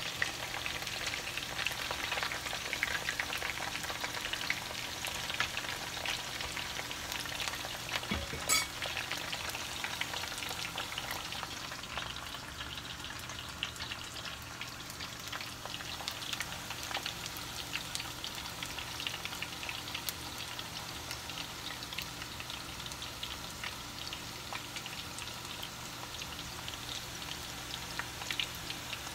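Green banana slices deep-frying in hot oil in a cast-iron skillet: a steady crackling sizzle full of tiny pops, with a utensil stirring and turning the slices at first and one sharp knock about eight seconds in.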